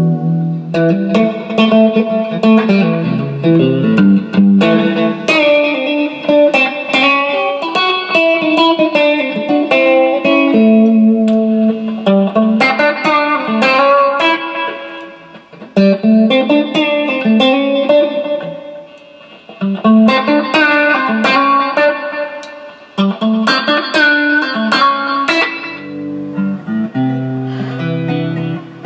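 Electric guitar played in picked melodic phrases of single notes and chords, with brief pauses about halfway through and again near the end.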